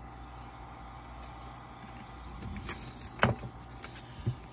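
A comic book in its plastic sleeve being handled and set onto a wire display stand: a few light clicks and knocks, the loudest about three seconds in, over a steady low hum.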